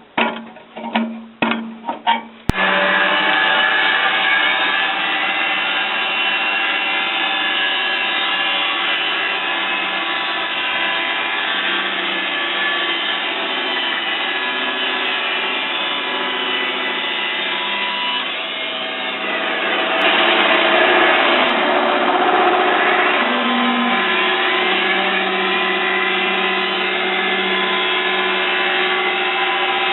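Electric horizontal band sawmill (R-60 band saw) running and sawing through a log, a steady sound that shifts and swells for a few seconds past the middle. It comes in abruptly after a couple of seconds of plucked, rhythmic music.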